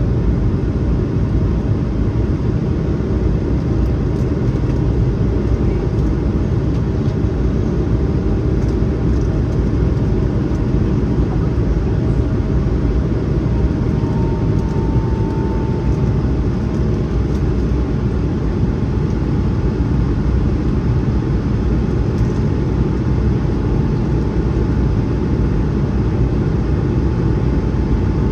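Steady cabin noise inside an Airbus A220-100 in flight: a constant low rumble of its Pratt & Whitney PW1500G geared turbofan engines and airflow, with a faint steady whine above it.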